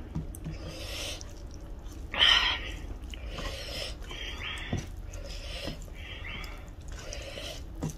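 Hand mixing rice with chicken gravy and pickle on a steel plate: soft, irregular squishing, with short breathy sounds, the loudest about two seconds in.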